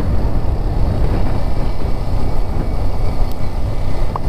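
Steady wind rush on the microphone and road noise from a Yamaha R15 V4 motorcycle cruising at about 42–44 km/h.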